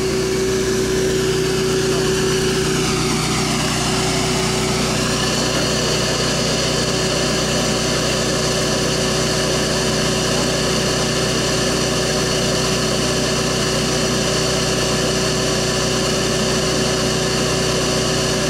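Bee vacuum's motor running steadily with a high whine, honeybees being sucked up through its hose. Its pitch slides about in the first few seconds, then holds steady.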